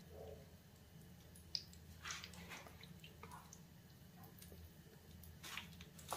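Faint, sparse wet squishes and crumbly crackles of marinated chicken pieces being handled and pressed into crushed Kurkure crumbs to coat them.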